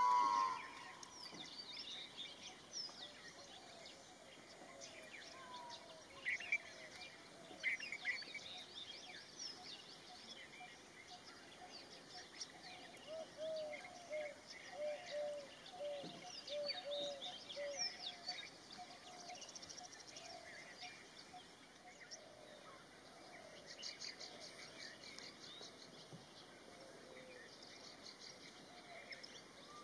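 Wild birds chirping and calling over a steady outdoor hiss, with a quick run of repeated short notes about halfway through. A loud honking call ends right at the start.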